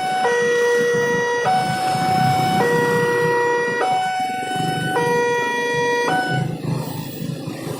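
Railway level-crossing warning siren sounding a two-tone hi-lo alarm, a lower and a higher note taking turns about every second, then cutting off about six and a half seconds in. It warns that a train is approaching the crossing.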